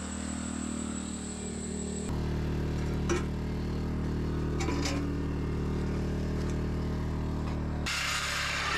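Corded DeWalt reciprocating saw running steadily as it cuts through a steel frame beam, over the hum of a portable generator's engine. The sound steps up about two seconds in and changes again near the end, with a couple of short sharp clicks from the blade on the steel.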